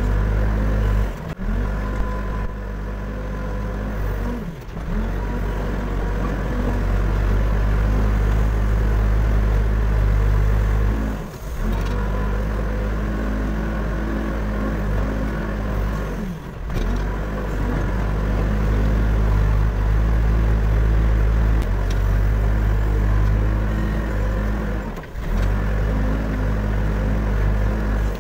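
Backhoe loader's diesel engine running steadily, with a few brief drops in level.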